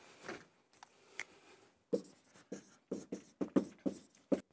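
Dry-erase marker writing on a whiteboard: a quick run of short strokes, starting about two seconds in.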